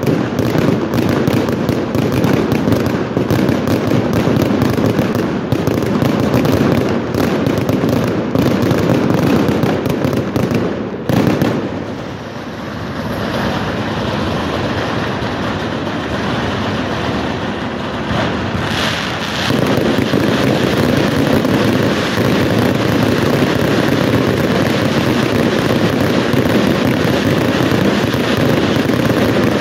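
Fireworks display: a dense, rapid barrage of bangs and crackling. About eleven seconds in, the bangs thin out to a steadier rushing hiss of fountains. Near twenty seconds the dense barrage starts again.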